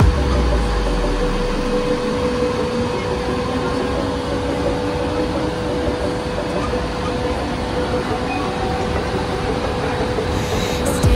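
Mumbai suburban electric local train running on the rails, a steady rumble with a constant hum.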